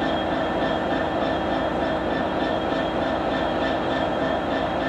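Class 66 diesel-electric locomotive's EMD two-stroke V12 engine running steadily, a constant drone with a high whine on top.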